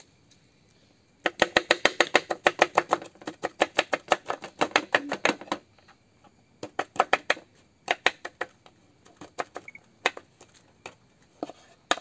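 Kitchen knife chopping a green bell pepper on a wooden cutting board: quick, even taps about six a second in a long run, then shorter runs with pauses between.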